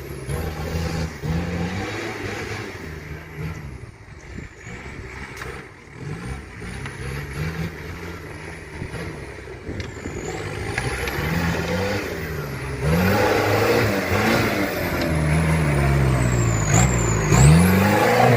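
Off-road vehicle engine revving up and down repeatedly, getting louder about two-thirds of the way through.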